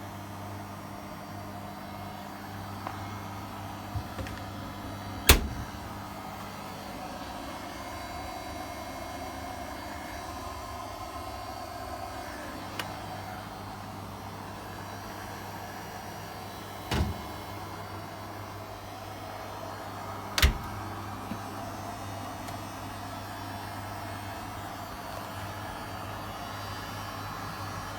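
Hotpoint tumble dryer running, its motor and drum giving a steady low hum, with three sharp knocks from inside at irregular intervals and a few lighter clicks.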